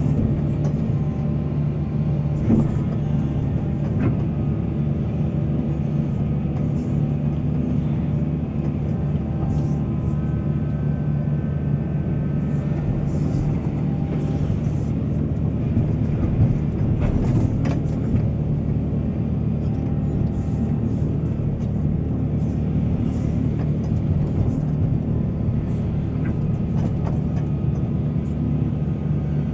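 Heavy excavator's diesel engine running steadily under load during mine loading work, with a few scattered knocks.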